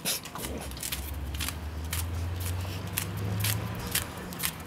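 A spaniel puppy slapping a front paw into a steel bowl of water: repeated short splashes at an uneven pace. A steady low rumble runs underneath from about half a second in.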